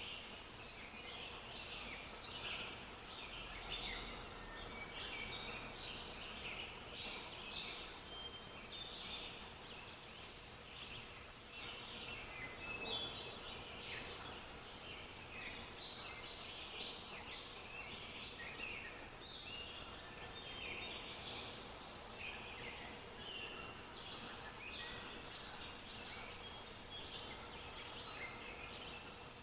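Many small birds chirping and singing at once in a continuous chorus of short, high calls and trills, with a faint steady tone underneath.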